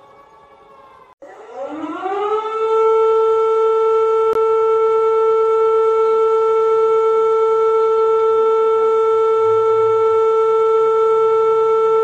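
Civil defense siren winding up: about a second in, a loud tone cuts in and rises in pitch over about a second and a half, then holds one steady, loud note. Before that, a faint falling siren tone is heard.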